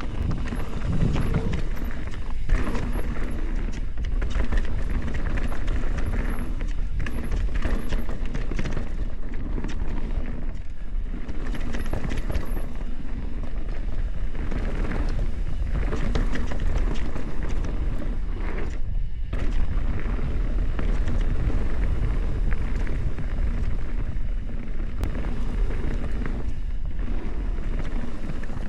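Full-suspension mountain bike ridden on a dirt trail: steady wind rush on the camera microphone and tyre noise, with frequent small knocks and rattles from the bike over rough ground.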